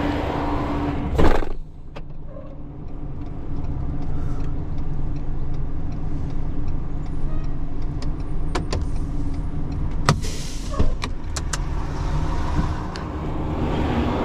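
Tow truck's engine running as the truck pulls forward, a steady low hum, with a loud clunk about a second in and scattered light clicks after.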